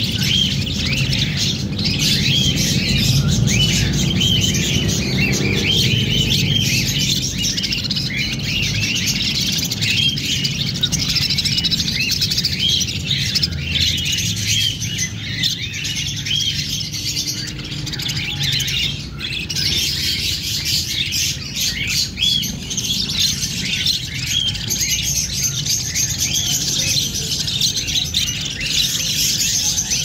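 A flock of budgerigars chirping and chattering without a break, many short high calls overlapping.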